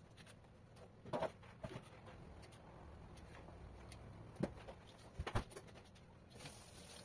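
Kitchen knife work on a carrot over a plastic cutting board: a few scattered short clicks and knocks as the carrot is cut and pieces are set down, the sharpest about a second in and around five seconds in.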